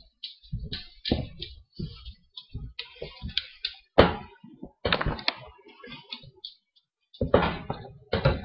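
Irregular series of short thumps and knocks, with a sharp click about four seconds in.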